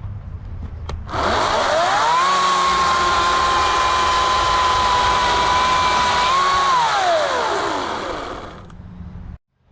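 Ryobi 40-volt 14-inch cordless electric chainsaw spinning up with a rising whine, cutting through a small branch at a steady pitch for about four seconds without slowing, then winding down to a stop.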